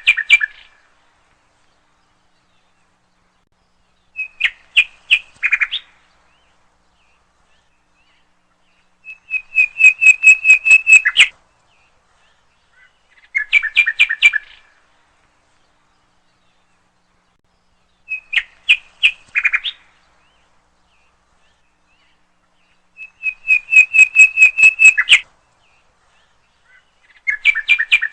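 A nightingale singing: short phrases of rapid repeated notes, one every four to five seconds with silent pauses between, the same few phrases coming round again in turn.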